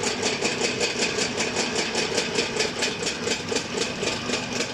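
Hino 7D six-cylinder inline diesel injection pump running on a test bench: a fast, even ticking of about eight or nine strokes a second over a steady hum, during a check of its low-speed fuel cut-off.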